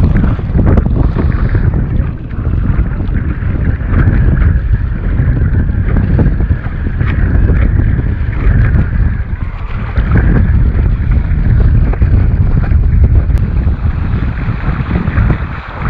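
Strong wind buffeting the microphone in a loud, continuous low rumble, with water rushing and splashing as a small board moves across the water.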